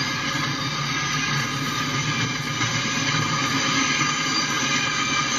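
Freight cars of a double-stack intermodal train rolling past, a steady noise of steel wheels on the rails that keeps on without a break.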